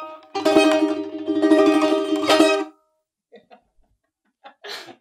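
Two balalaikas playing the closing bars of a Russian folk dance tune, with fast strummed chords that end on a final stroke about two and a half seconds in. A few faint soft sounds follow.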